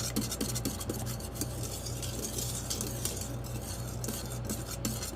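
A utensil stirring gravy thickening in an Instant Pot's stainless steel inner pot, with repeated small clicks and scrapes against the metal over a steady low hum.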